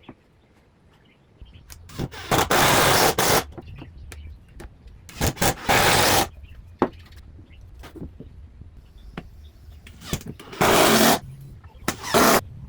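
Wood being worked with a tool: loud noisy strokes of about a second each, three of them spaced a few seconds apart and a shorter one near the end, over a low steady hum.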